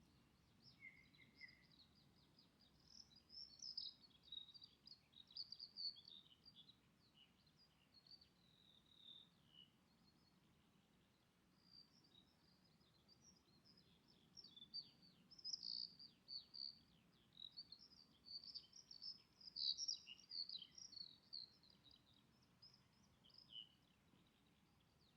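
Faint, high-pitched twittering and chirping of birds: many quick chirps in two long bouts with a short lull between, over a faint low background hum of the outdoors.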